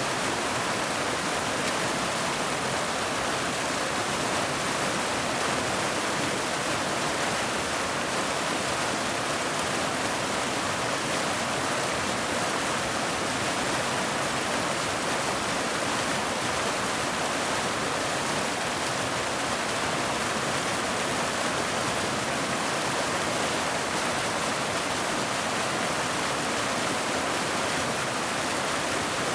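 River or creek water flowing over rocks: a steady, even rush with no breaks or changes.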